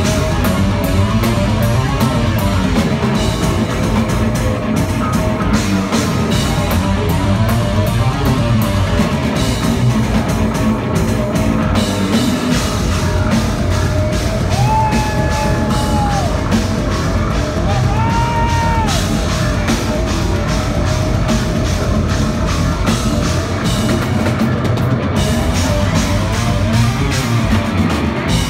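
Progressive metal band playing live: a busy drum kit and double-neck electric bass drive an instrumental passage, with a few long held lead notes that bend up and fall away from about halfway.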